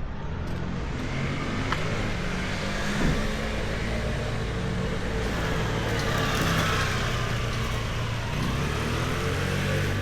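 Road traffic: a motor vehicle's engine running close by, with the noise of passing vehicles swelling in the middle.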